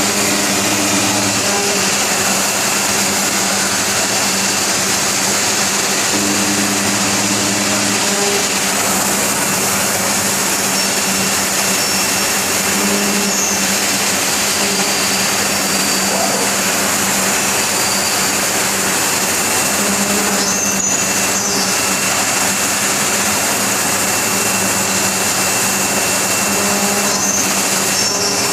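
Aluminum-profile CNC machining center running: loud, steady machine noise with a high spindle whine, and a low hum that swells every six or seven seconds.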